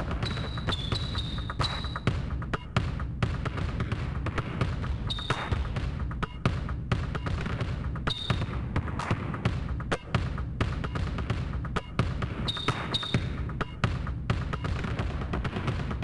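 Basketballs bouncing on an outdoor hard court: many sharp irregular thuds over a steady low rumble, with a few short high squeaks near the start, about eight seconds in, and again around twelve to thirteen seconds.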